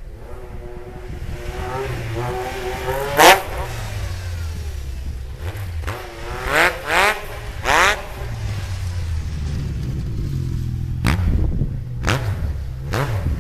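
Yamaha FX Nytro snowmobile's three-cylinder four-stroke engine through a Super Q aftermarket exhaust, burping along with the throttle blipped in short, sharp revs. The loudest rev comes about three seconds in, a cluster follows a few seconds later and more come near the end, with steadier running between them.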